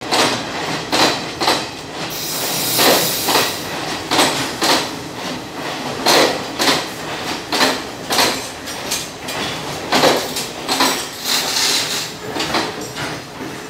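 Passenger train carriages rolling past a platform, their wheels knocking over the rail joints in a steady run of sharp clacks about every half second, some in pairs, over the rush of the moving train.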